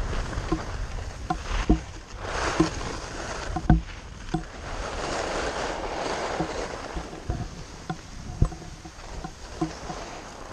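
Skis sliding and scraping over packed snow, the hiss swelling twice as the skier turns, with several sharp knocks and a low rumble of wind on the microphone.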